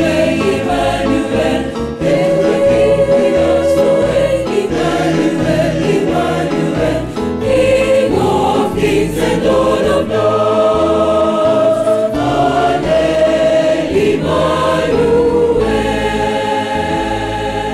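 Mixed church choir singing a gospel song in several-part harmony over a low bass line.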